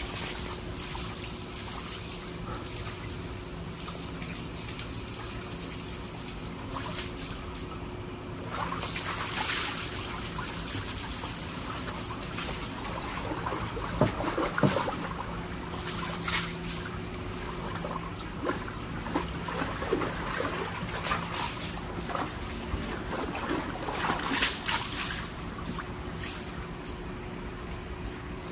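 Water trickling and sloshing in a plastic tub with a Siberian husky sitting in it, with louder splashes as the dog moves about, about a third of the way in, around the middle and again near the end.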